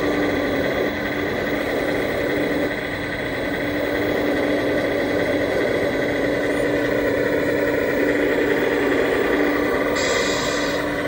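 Steady engine-like running with a constant hum, and a short high hiss about ten seconds in.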